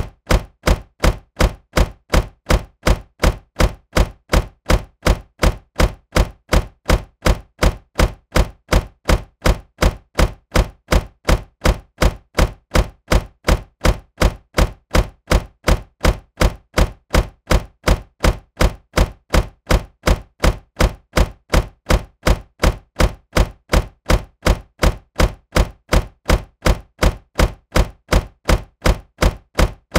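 Car door shutting with a solid thunk, repeated over and over at an even pace of a little over two a second.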